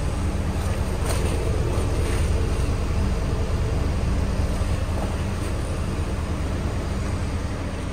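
The 2008 Hummer H3's 3.7-litre inline-five idling, heard as a steady low exhaust rumble at the tailpipe, with brief rustling as the exhaust extraction hose is handled about one and two seconds in.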